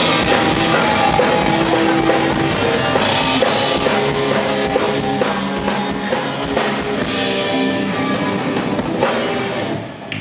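Live rock band playing an instrumental intro on drum kit and guitars, loud and dense, dropping back briefly near the end just before the vocals enter.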